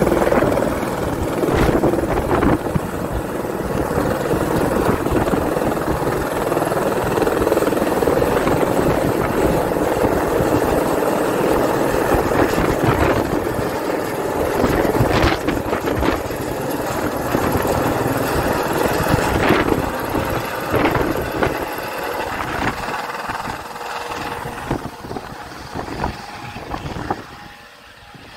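Helicopter flying overhead, its rotor and engine noise steady, then fading over the last few seconds as it moves away.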